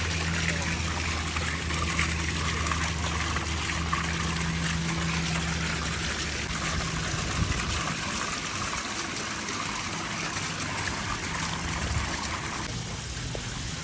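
Steady splashing of running water, with a low steady hum under it through roughly the first half.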